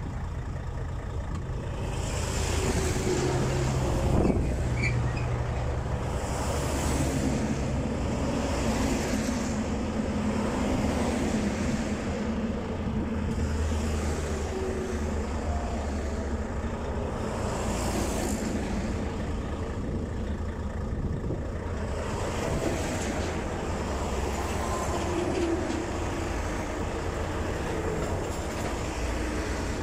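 Fast highway traffic passing close by, cars and trucks rushing past one after another every few seconds over a steady low rumble.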